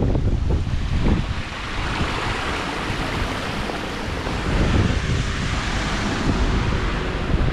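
Strong wind buffeting a GoPro microphone in rainy weather, with a broad rushing hiss that swells through the middle and eases off, and low rumbling gusts at the start and end.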